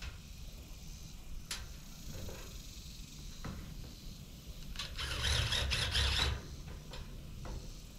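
Faint scattered clicks and knocks as a metal game feeder box is handled, with a rustling rush lasting about a second and a half about five seconds in.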